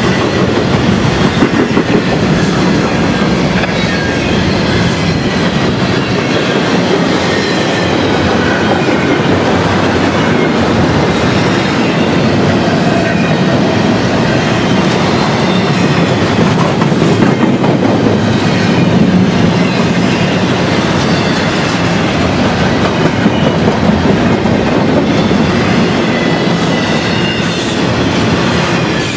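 Double-stack intermodal container train rolling past close by: a loud, steady rumble and clatter of steel wheels on the rails under the loaded well cars.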